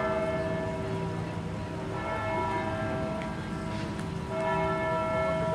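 A large bell tolling, struck about every two to two and a half seconds, each stroke ringing on while it fades until the next.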